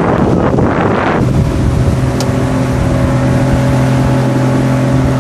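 Motorboat engine running steadily under way, with a loud rush of wind and water noise over it in the first second or so.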